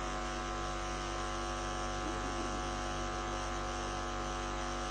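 Steady electrical hum and buzz made of many fixed tones, holding unchanged throughout.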